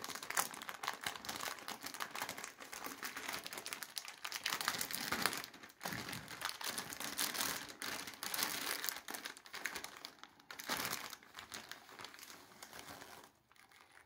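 A plastic pouch of bird millet sprays crinkling and rustling as hands work it open, a dense, uneven crackle that dies away near the end.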